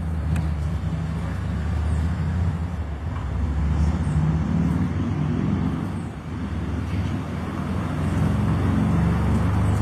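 Low, uneven rumble of nearby motor-vehicle traffic, with faint light clicks now and then.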